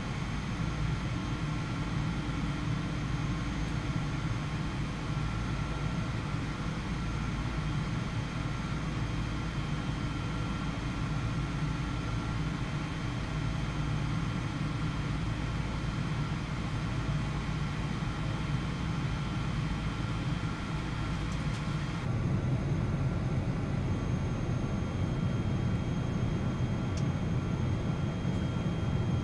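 Steady jet engine and airflow noise heard inside the cabin of a Boeing 777-200 airliner: a deep rumble under an even hiss, with a few faint steady whines. About 22 seconds in the sound changes suddenly, turning duller with a slightly heavier rumble.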